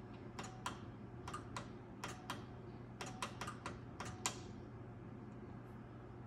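Range hood push-button controls clicking as the LED light setting is switched: about ten sharp clicks over some four seconds, many in quick pairs, then they stop.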